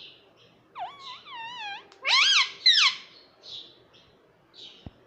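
Indian ringneck parakeet calling: short high chirps, a wavering pitched call about a second in, then two loud calls that rise and fall in pitch, the loudest sounds here.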